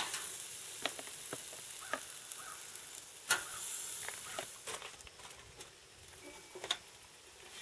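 Squirrel pieces sizzling on a hot grill grate, with sharp clicks of metal tongs against the grate as more pieces are laid on. Near the end the grill lid is lowered with a clank.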